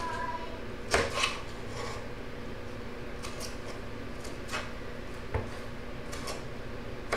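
Kitchen knife slicing through a tomato on a cutting board: irregular cuts and taps of the blade on the board, roughly one a second, the loudest about a second in.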